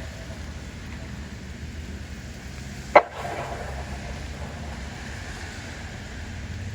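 Steady outdoor background hiss of wind and rain with a low rumble underneath, and one short falling chirp about three seconds in. The siren is not sounding.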